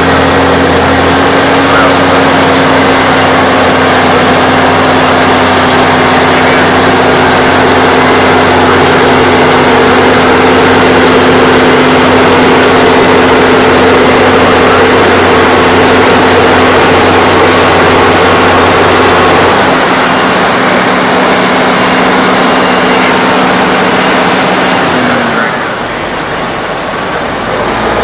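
A 2023 Massey Ferguson 8732 tractor's six-cylinder diesel engine running steadily at high revs. Its note drops about two-thirds of the way through, then sags briefly near the end before picking back up.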